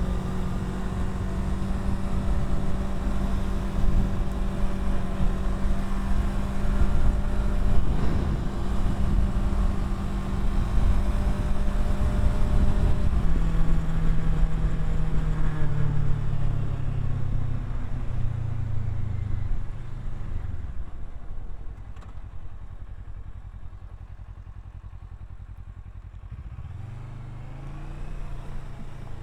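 Kawasaki Versys 650 parallel-twin engine running at a steady speed under wind and tyre rumble. About halfway through, its note falls in steps as the bike slows, settling to a quiet low run. Near the end it revs up again.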